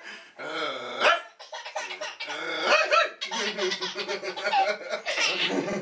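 A five-month-old baby laughing in repeated giggles, mixed with dog-like woofing barks played to him by a toy dog.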